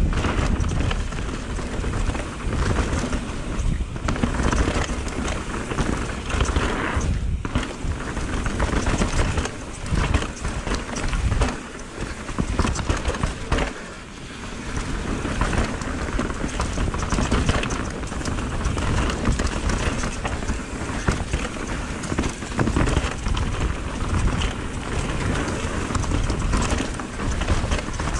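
Mountain bike descending a rough dirt trail at speed: wind buffeting the action-camera microphone over the steady clatter and crunch of tyres, suspension and chain on roots, rocks and leaves. The noise briefly eases about fourteen seconds in.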